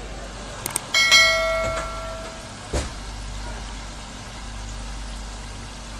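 Two quick clicks, then a bright bell chime ringing out and fading over about a second and a half, the notification-bell sound effect of a subscribe-button animation. A single knock follows near three seconds.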